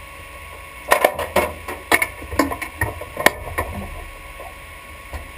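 A quick, irregular run of sharp clicks and metal knocks for about three seconds: a race driver releasing his harness latch and pulling off the quick-release steering wheel in a stripped race-car cockpit.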